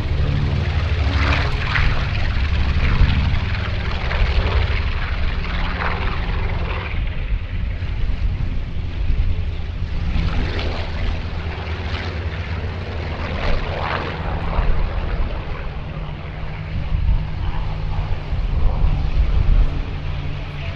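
Piston engines of propeller-driven WWII warbirds on their take-off runs: a loud, steady low drone with rasping swells that rise and fall every few seconds as the aircraft go by.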